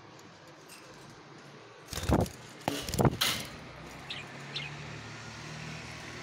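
Loud rumbling thumps and rustles for about a second and a half, starting about two seconds in, then two short high chirps from pet budgerigars a little after four seconds.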